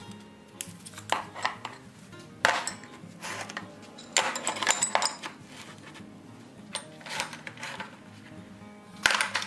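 Flat iron buggy seat irons clinking and clattering as they are picked up and laid down against one another on a workbench, in several separate bursts, the loudest near the end. Soft background music runs underneath.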